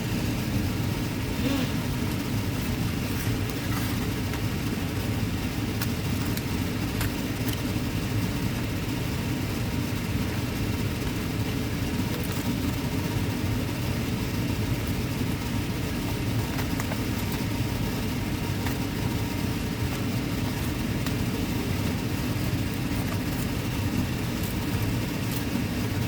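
Electric fan running steadily, a constant low whirring drone, kept on to clear cooking smoke so the smoke alarm doesn't go off.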